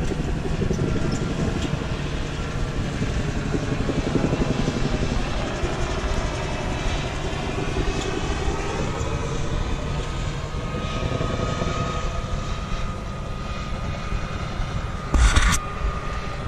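Droning of a propeller aircraft engine passing overhead over a steady rumble, with a brief loud bump on the microphone near the end.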